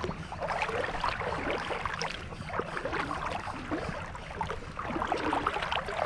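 Seawater sloshing and swishing around legs as a person wades through the shallows, in an irregular run of swishes.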